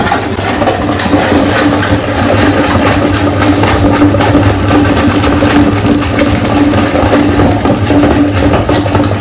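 Meat grinder running with a steady motor hum, crunching and crackling as it grinds hard candy lollipops.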